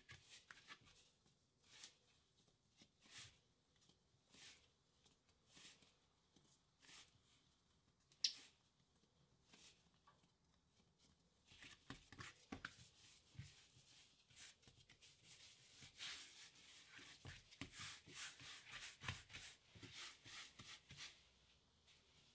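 Faint soft pats and rubbing of hands shaping bread dough on a floured wooden board, spaced about a second apart at first, with one sharper click about eight seconds in. The handling gets busier in the second half, with many small taps and rustles.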